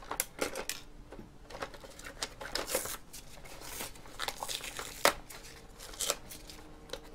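Hands rustling and crinkling at the plastic top shell of a robotic vacuum cleaner, pulling at a taped foam strip, with scattered clicks and a sharper knock about five seconds in.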